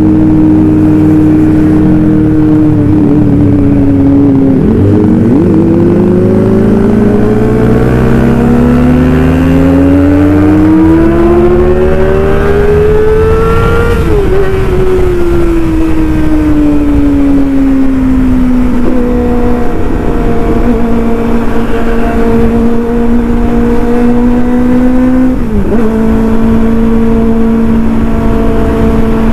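Kawasaki ZX-25R's inline-four engine through an aftermarket racing exhaust, under way on the road. The revs dip at a gear change about five seconds in, then climb steadily to a high-pitched peak near the middle. They fall away and hold steady, then dip briefly at another shift near the end.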